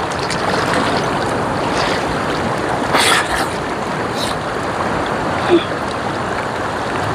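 Shallow rocky river rushing over stones in a steady hiss, with a couple of short splashes from a bather about three and four seconds in.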